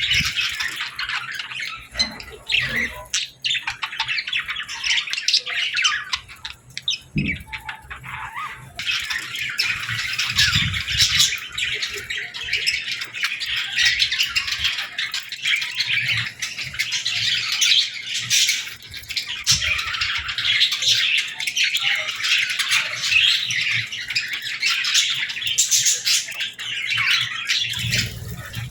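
A group of budgerigars and lovebirds chirping and chattering continuously, many calls overlapping, with a brief thinner stretch about a quarter of the way in and a few soft low thumps.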